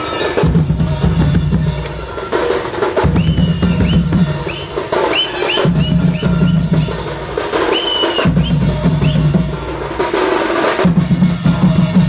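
Odia singha baja band playing: huge barrel drums beaten with sticks and large cymbals clashing in a driving, repeating rhythm. Short high notes that slide in pitch come over it twice.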